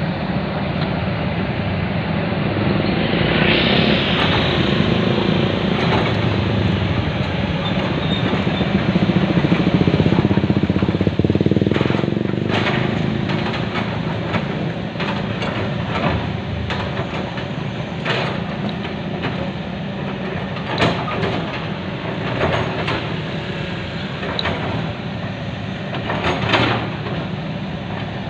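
Excavator's diesel engine running steadily under load, with a short hiss about four seconds in and repeated sharp knocks from about halfway through as it works.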